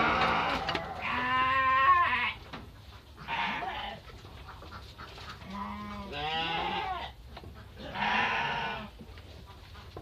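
Garut sheep bleating in a pen, about four separate wavering calls a second or two apart.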